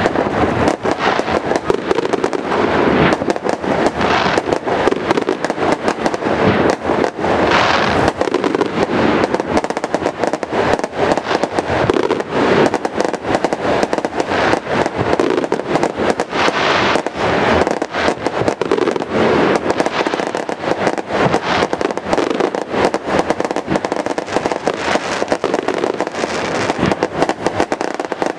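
A fireworks display: aerial shells bursting overhead in a dense, unbroken string of bangs with no pause.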